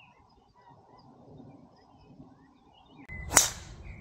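Golf club striking a ball off the tee: one sharp, loud crack about three seconds in, with a brief ring after it.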